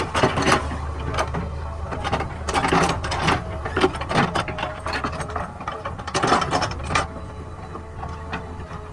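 JCB backhoe loader's diesel engine running steadily, with irregular metallic clanks and scraping from the digging arm and bucket at work.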